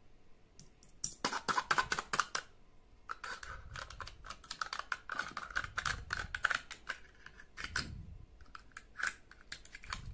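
Wooden toothpick punching a series of holes through the foil seal of a jar of chocolate spread, a fast run of crackly clicks and pops. The punctured foil is then torn and peeled back from the jar's rim with more crackling clicks.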